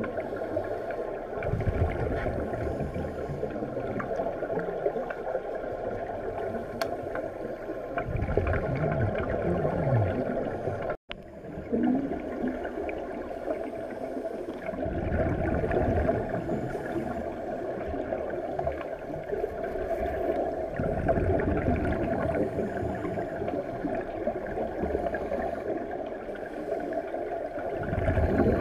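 Scuba divers' exhaled bubbles from their regulators, heard muffled through an underwater camera: surges of bubbling every few seconds over a steady underwater hiss. The sound cuts out for an instant about a third of the way in.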